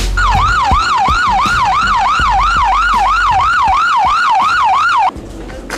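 Siren sweeping fast up and down, about three times a second, over a low bass beat, cutting off suddenly about five seconds in.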